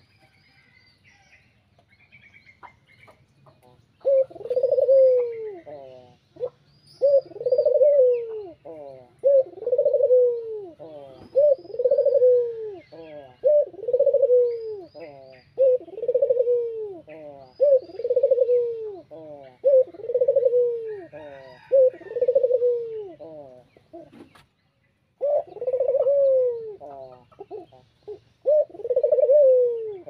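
Barbary dove (burung puter) cooing over and over, a rolling coo about every two seconds from about four seconds in, with one short break past the middle. Small birds chirp faintly in the background.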